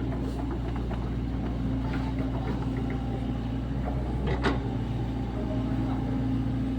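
Sany SY75 mini excavator's diesel engine running steadily under working load, with a few light clicks and a sharper knock about four seconds in.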